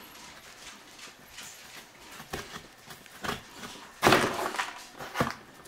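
Sheet of peel-and-stick metal mosaic tile being handled and cut down a seam: a few sharp clicks and crinkles, the loudest a half-second crackling rustle about four seconds in.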